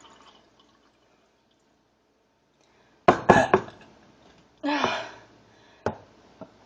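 Someone gulping a drink: a few quick swallows about three seconds in, then a short throaty sound, then a sharp click.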